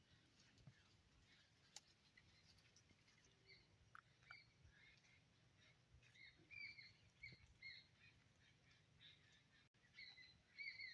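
Faint, short bird chirps, repeated in loose clusters from a few seconds in, over quiet background.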